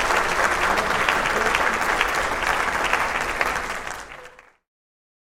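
Crowd applauding, a dense, even clapping that fades out after about four seconds.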